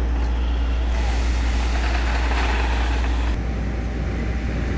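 Crawler excavator's diesel engine running under load, with a rush of crushed stone pouring from the bucket into a dump truck bed from about one second in. A little past three seconds the sound changes abruptly to a lighter, fluttering machine noise.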